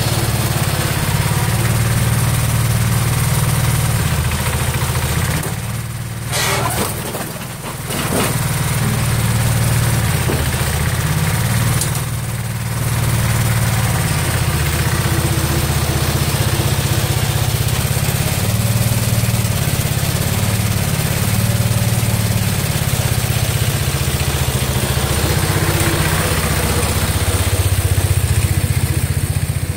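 Garden tractor engine running steadily, with brief drops in level about six to eight seconds in and again near twelve seconds.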